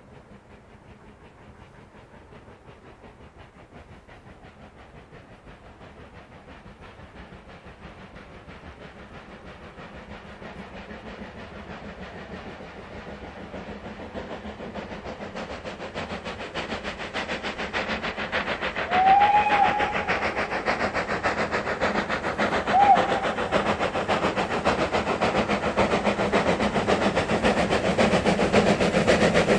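Steam locomotive hauling a train towards the listener, its exhaust beats growing steadily louder as it approaches. Its whistle sounds twice about two-thirds of the way through, the first blast a little longer than the second.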